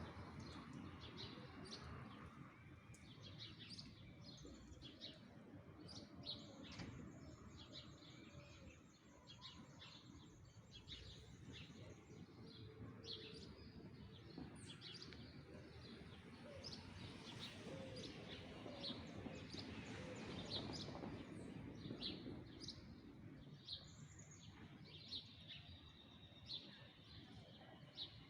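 Faint birds chirping, with many short high chirps scattered throughout and a rapid even trill from about a quarter to halfway through, over a low steady rumble of city background noise.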